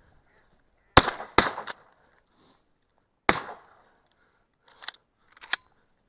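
Shotgun shots at flushing ducks: two blasts in quick succession about a second in and a third about two seconds later, each with a brief echoing tail. Two shorter sharp cracks follow near the end.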